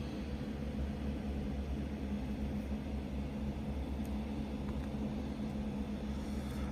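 Steady low background hum with a faint hiss, even throughout, like a fan or air conditioner running in the room.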